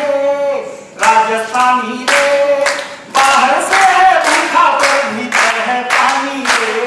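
A man singing verse in long held notes, with hands clapping along in time, about two claps a second, from about a second in.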